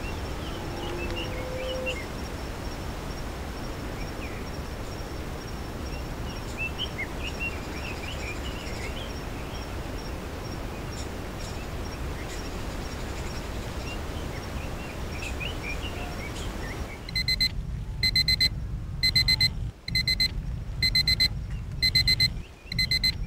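Outdoor ambience with birds chirping over a low rumble. About 17 seconds in, a digital alarm-clock beep sounds as the countdown timer ends: loud high-pitched beeps in quick bursts, about one burst a second.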